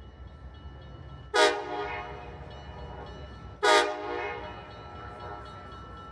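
Two short blasts of a diesel locomotive's multi-chime air horn, about two seconds apart, each fading away after it is cut off. Under them is the steady low rumble of the train running. Two short blasts is the railroad signal to release brakes and proceed.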